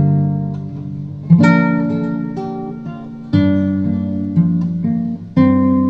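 Slow instrumental acoustic guitar music, a chord struck about every two seconds and left to ring out, with a few single notes between.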